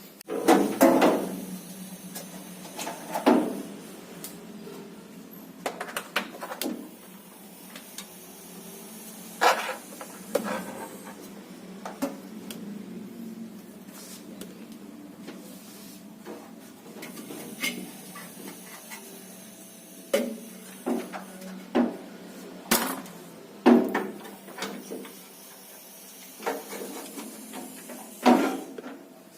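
Irregular knocks, clicks and clatter from parts and tools being handled while a kiosk is assembled, some strikes sharper than others. A steady low hum runs underneath.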